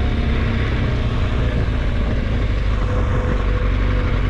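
Vehicle engine running steadily while driving, with road and wind noise.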